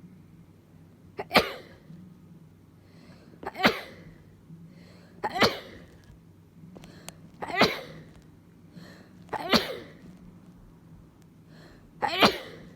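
A person with a minor cold sneezing six times in a fit, each sneeze sharp and loud, about two seconds apart.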